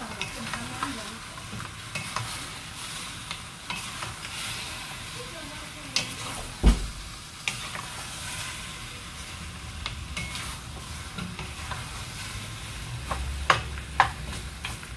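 Chicken pieces and onions sizzling in a stainless steel pot over a high flame without oil, stirred and turned with two wooden spatulas. Wood knocks against the pot now and then, the loudest about seven seconds in and two more near the end.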